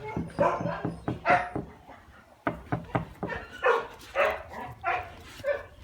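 Shiba Inu barking repeatedly, a short bark about every half second, with a brief pause about two seconds in.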